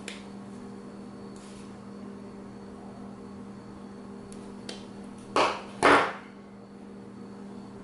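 Two short, loud scraping clatters about half a second apart, a little past halfway, from hand tools stripping the ends of a length of hookup wire and being set down on the table. Otherwise only a few faint clicks over a low steady hum.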